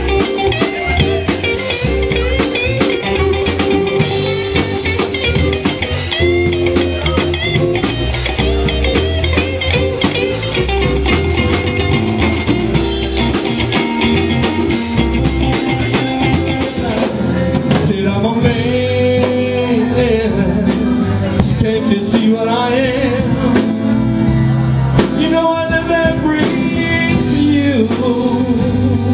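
Live blues-rock band playing: electric guitars, bass and a drum kit, with singing that is clearest in the second half.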